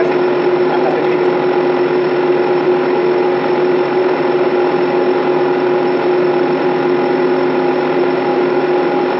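Steady drone of a ship's machinery and ventilation, holding several constant hum tones at an even level.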